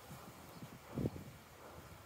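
Faint handling noise of a loosened plastic dashboard trim panel being worked free by hand: soft rubbing and small knocks, with one dull knock about a second in.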